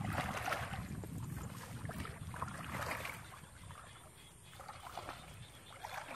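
Water sloshing and splashing as people wade through a shallow muddy pond and haul in a fishing net, in uneven swishes that thin out about four seconds in.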